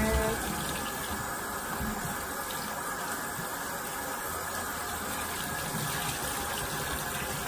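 Water running steadily from a bathroom sink faucet while a face is rinsed under it.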